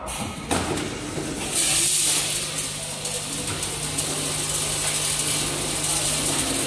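Automatic screw bagging machine with boxing device running: mechanical clatter with a click about half a second in, then a hiss and a steady hum that come in about a second and a half in, the hum stopping near the end.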